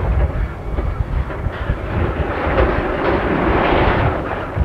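SY class steam locomotive working with a train of dump wagons: low, uneven rumbling and chuffing, with a long hiss that swells from about a second and a half in and dies away near the end.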